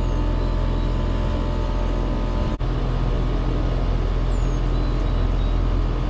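Trane XR heat pump outdoor unit running in cooling mode, compressor and condenser fan giving a steady hum, now working again on a new run capacitor. Its condenser coil is wrapped to build head pressure in the mild weather. The hum breaks off for an instant about two and a half seconds in.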